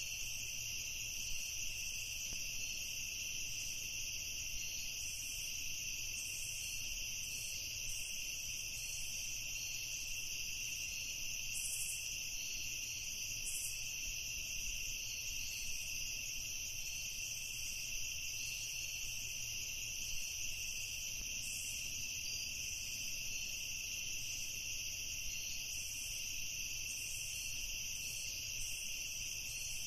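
Insects chirring in a steady, high-pitched, unbroken drone.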